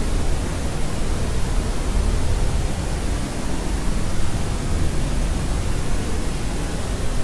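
Steady white noise for soothing a baby to sleep: an even, unbroken hiss with more weight in the low end, never changing.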